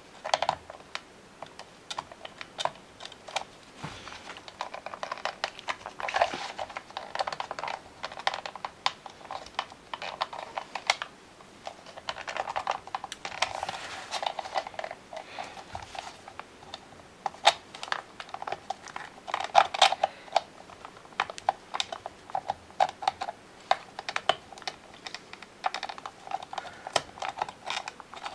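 Small screwdriver prying and scraping at the hard plastic of a 1992 Playskool Teddy Ruxpin's head mechanism, working the bottom jaw piece loose: a run of irregular small clicks and scrapes.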